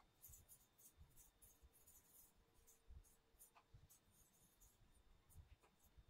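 Faint, irregular scratching and rubbing in short strokes from a hand drawing white kolam lines on a rough floor; otherwise near silence.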